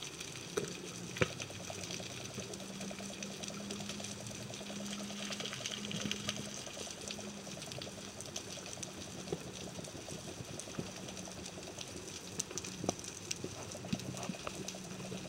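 Underwater sound as heard through water: a steady motor hum with a fast, even pulsing, over a scatter of faint clicks and crackle.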